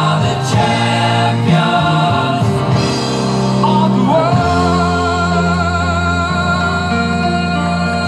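Music with singing voices, settling into a long held chord about halfway through.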